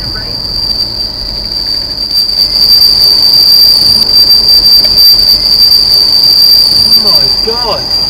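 Freight train wheels squealing against the rails: one continuous, ear-piercing high-pitched screech that grows louder about two and a half seconds in and eases slightly near the end. The owner takes it for a sign that something is wrong with the wheels.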